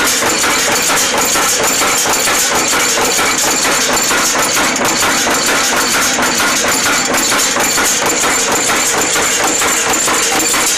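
N-6 wire nail making machine running: a loud, steady, rapid clatter of repeated metal strikes.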